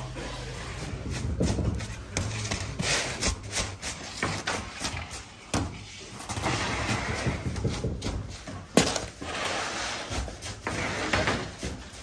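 Bakery work clatter: irregular knocks and thumps as flatbreads and long wooden oven peels are handled on a wooden worktable, with one sharp knock about nine seconds in, over a low steady hum.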